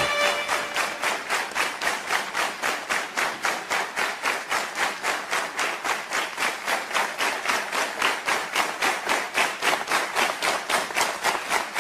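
Studio audience clapping in unison, a steady beat of about four claps a second. The last notes of a theme tune fade out in the first second.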